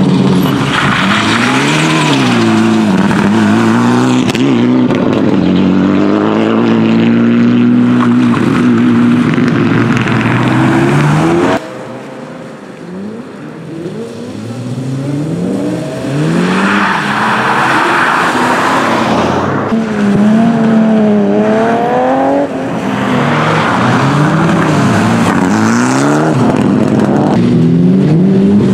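Rally cars driven hard through tight corners, their engines revving up and falling back again and again with the gear changes. The sound drops for a few seconds near the middle, then builds again as another car comes through.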